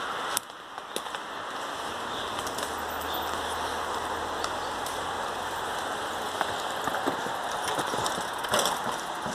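A steady hiss like rain on forest foliage, with scattered clicks and light rattles that grow more frequent in the second half as mountain bikes descend the dirt trail towards the microphone.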